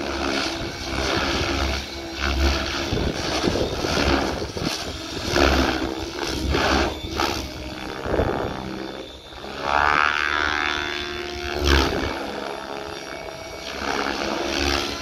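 Specter 700 radio-controlled helicopter flying aerobatics, its rotor blades whooshing in repeated swells as it flips and pitches, with a whine that glides in pitch about ten seconds in. Wind buffets the microphone.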